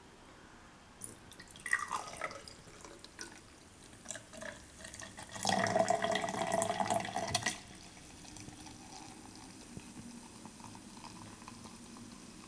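Mimosa poured from a pitcher into a tall glass: scattered splashes at first, loudest for about two seconds around the middle, then a quieter trickle as the glass fills.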